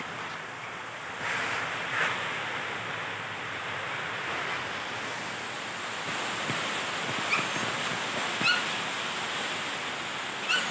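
Chow chow whimpering: three brief, high, rising whimpers in the second half, over a steady rushing noise.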